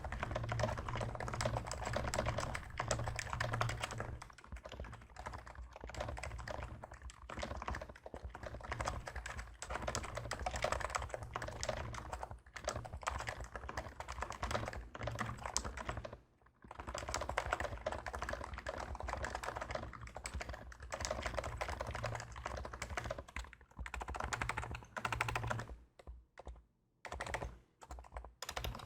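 Fast, continuous typing on a Realforce R2 PFU Topre electrostatic-capacitive keyboard modded with DesKeys domes, MX-style sliders, silencing rings, lube and damping mat under DSA keycaps. There is a short pause about two-thirds of the way through, and the strokes come in halting bursts near the end.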